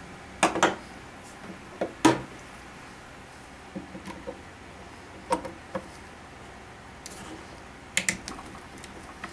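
Scattered sharp clicks and knocks of metal rifle parts being handled and removed while an AK-pattern rifle is taken apart by hand, a few light clinks in quick pairs.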